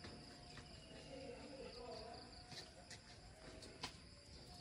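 Near silence: quiet outdoor ambience with a faint steady high-pitched tone and a few light clicks.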